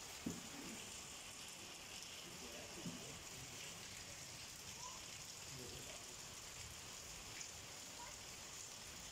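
Heavy rain falling steadily on standing water over a paved lane, an even hiss.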